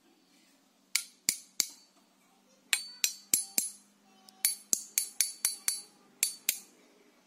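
Two stainless-steel usuba-style kitchen cleavers knocked blade against blade: about fifteen sharp metallic clinks, each ringing briefly, in quick groups of three, four, six and two.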